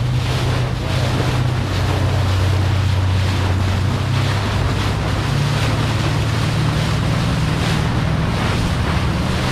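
Boat engine running steadily under way, a low drone, with water rushing past the hull and wind buffeting the microphone.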